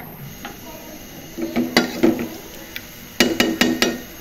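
Silicone spatula scraping and knocking against a metal cooking pot while a curry masala is stirred. A few strokes come about a second and a half in, then a quick run of four or five knocks near the end, and the pot rings briefly with each knock.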